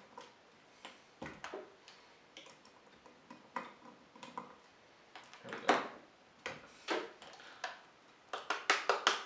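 Plastic parts of a BeoLab 3 loudspeaker's casing clicking and knocking as they are worked loose by hand: scattered sharp clicks, then a quick run of louder clicks near the end as the outer shell comes free.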